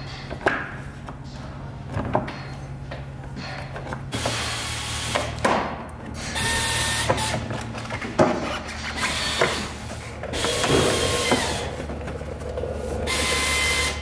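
A power tool run in several short bursts of about a second each, starting about four seconds in, with knocks of metal between runs, as bolts on the front suspension are driven.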